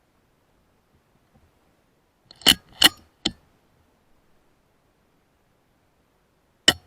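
Weihrauch HW100 PCP air rifle: three sharp clacks in quick succession about two and a half seconds in, the third weaker, then a single sharp clack near the end.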